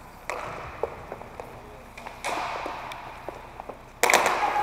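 Inline hockey play on a plastic tile rink floor: scattered clicks and taps of sticks and skate wheels, then a sudden loud, rough noise about four seconds in as play restarts from the faceoff.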